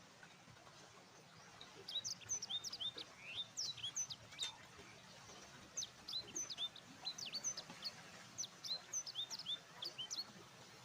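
Birds chirping in a quick string of short, high, mostly falling notes. The chirping starts about two seconds in and keeps up until near the end.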